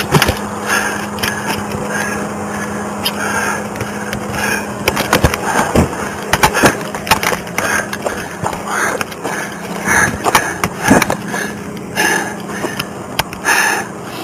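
Body-worn camera rubbing and knocking against the officer's uniform and gear as he moves, giving irregular thumps, scrapes and clatter. A steady low hum underneath stops about halfway through.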